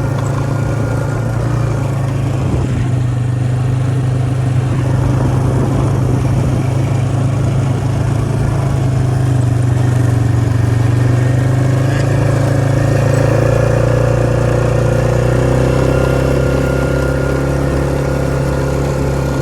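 A vehicle engine running steadily with a low drone, getting a little louder for a few seconds past the middle.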